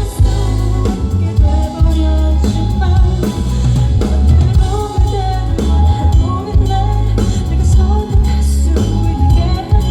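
Live band music with a woman singing a melody over drums and a heavy bass line.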